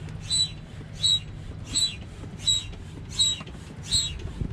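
Hand pump inflating an inflatable stand-up paddleboard: a squeaky hiss of air on each stroke, six strokes about 0.7 seconds apart.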